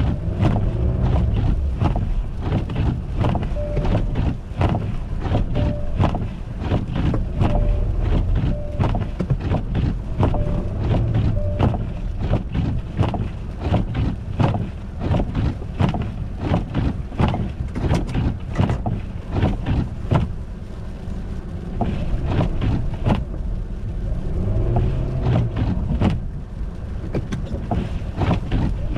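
Car driving on an ice- and snow-covered road: a steady low rumble with frequent sharp cracks and knocks, which thin out after about twenty seconds. A faint tone beeps on and off for the first twelve seconds or so.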